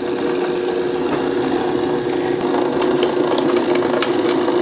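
Drill press running with its bit boring into the end grain of a large wooden dowel blank: a steady motor hum with the hiss of cutting, and a few faint ticks toward the end.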